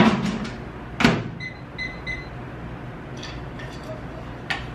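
Over-the-range microwave being set to pop a bag of microwave popcorn: the door shuts with a knock about a second in, then three short keypad beeps. A light click near the end.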